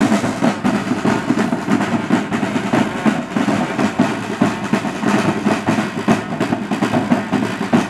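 A drumline of marching snare drums and a bass drum playing together, a dense rhythm of rapid stick strokes with heavier bass drum beats.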